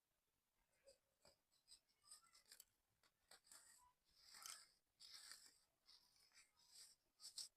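Dry sand-cement crumbling and crunching in a string of short, gritty crackles, the loudest about halfway through and just before the end, then cutting off suddenly.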